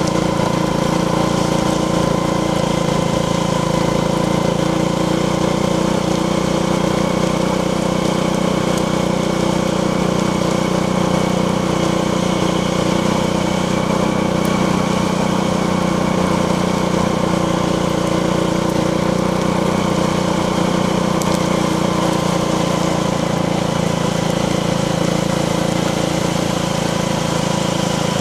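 Steady machine drone at an unchanging pitch and level, running without a break.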